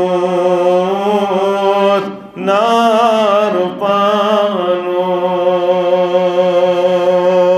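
A man chanting a devotional verse unaccompanied, holding long drawn-out notes, with a short breath break about two seconds in.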